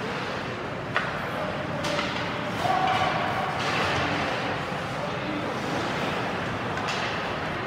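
Ice hockey arena sound during play: a steady hiss of skates on the ice under echoing voices of players and spectators. A sharp clack of stick and puck comes near one second in, and a louder stretch of voices follows around three seconds in.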